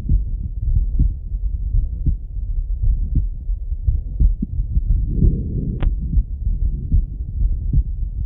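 A man's slow heartbeat heard through a Littmann stethoscope: deep, muffled thumps at about one beat a second. About five seconds in there is a brief rush of noise, followed by a short, faint high squeak.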